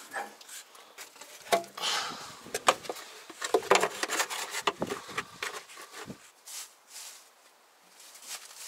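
Irregular knocks, clicks and rustles of hands working in a truck's engine bay: a plastic funnel being handled and set into the oil filler, with clothing rustle. The knocks are quieter near the end.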